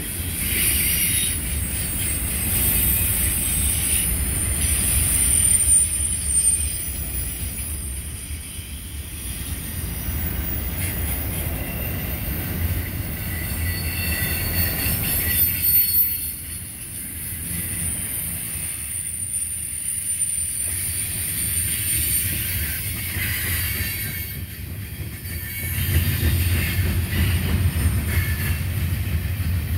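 Freight train of autorack cars and boxcars rolling past close by: a steady rumble and rattle of steel wheels on rail, with high-pitched wheel squeal coming and going over it. The rumble swells near the end.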